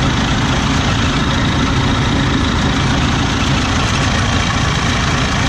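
Combine harvester's engine running steadily at idle, loud and close.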